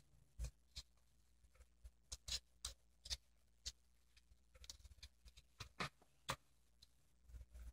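Faint, irregular rustles and small clicks of fingers handling and pinching a satin ribbon bow.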